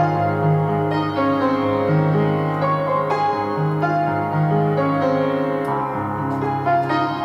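Slow, gentle piano music, its notes and chords held for about a second each.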